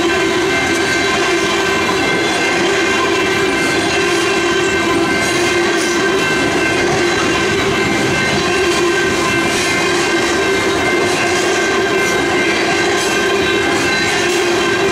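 Freight train tank cars rolling past close by, their wheels clicking over the rail joints under a steady rolling rumble, with a steady tone held over the noise throughout.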